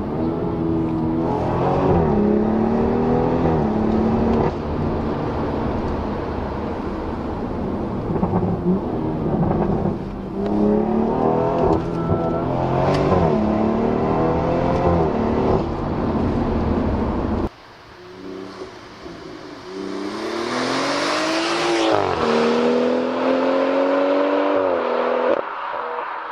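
BMW M140i's turbocharged 3.0-litre inline-six accelerating hard, its exhaust note climbing in pitch and dropping back at each upshift, several times. About two-thirds in the sound cuts to a quieter recording where the engine revs up again and then holds a steady pitch.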